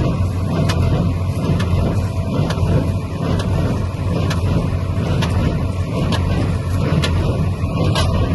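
Farmtrac tractor running steadily under load as it pulls and drives a Jagatjit square baler, a continuous low rumble with scattered light clicks and knocks from the machinery.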